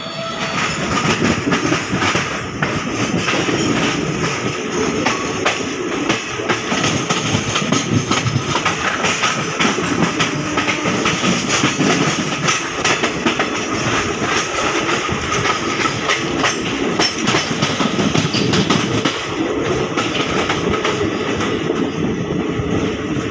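Passenger train rolling through a station yard, its wheels clattering steadily over rail joints and points, heard from an open coach door.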